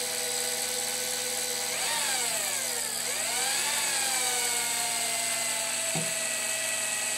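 Corded hand drill's motor whining as a black-and-gold Würth drill bit cuts into the side of a grade 8 steel bolt. About two seconds in the pitch swings up and then drops sharply, climbs back and settles a little lower as the speed is eased toward where long curly chips come off, the speed he calls optimum. A short knock comes near six seconds in.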